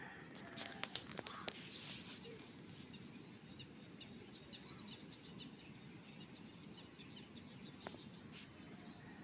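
Faint, steady rush of a swollen, muddy flooded river, with small birds chirping over it and a few light clicks about a second in.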